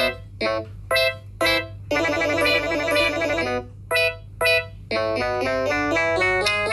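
Keyboard music over a steady low hum. Short, separated chord stabs give way to a dense flurry of notes in the middle, then a quick stepping melody near the end.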